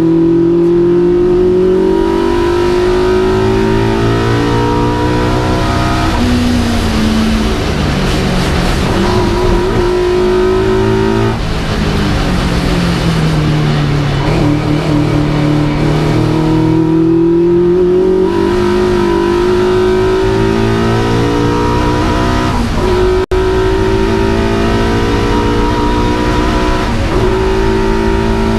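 Vauxhall Firenza special saloon race car's engine heard from inside the cabin under hard acceleration. It climbs in pitch through the gears with a drop at each upshift every few seconds, and falls in pitch for a few seconds about halfway through as the car slows for a corner.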